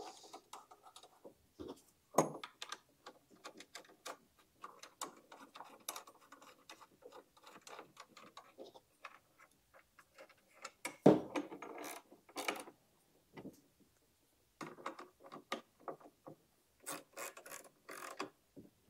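Socket ratchet clicking as bolts are tightened through steel angle brackets into the threaded inserts in the ends of a conduit pipe, with a few louder knocks of the metal parts against the wooden base.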